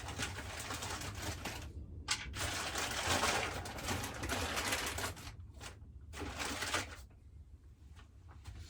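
Rustling and rubbing handling noise, on and off for about seven seconds with brief pauses, then fainter, as a small piece of pottery clay is fetched and worked in the hands.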